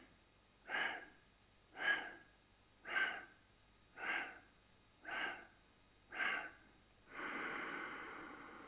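A man's staged exhalation in yoga mid-wave breathing: six short, sharp breaths out, about one a second, pushed alternately from the abdomen and the chest. About seven seconds in comes one longer breath that fades away.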